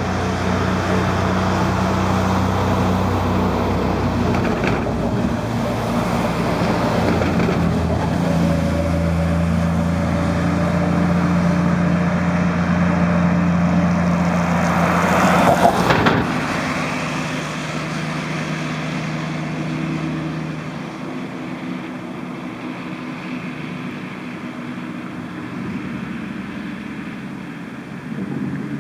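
A van driving across a bridge on wet asphalt, its engine hum heard steadily as it approaches. It passes close about 16 seconds in with a swell of tyre and engine noise, then fades away.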